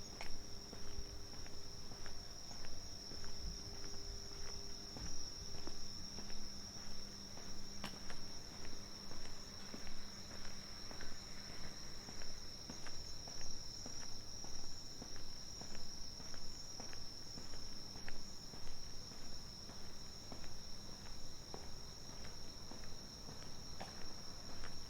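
A steady high-pitched chorus of night insects, with footsteps on pavement at an even walking pace of about one a second and a faint low hum that fades about halfway through.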